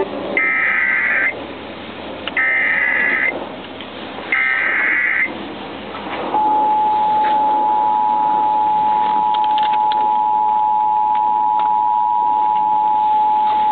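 Emergency Alert System tones coming over a radio broadcast. First come three one-second bursts of the digital data header, a harsh warbling screech, about a second apart. Then, about six seconds in, the steady two-tone attention signal starts and holds.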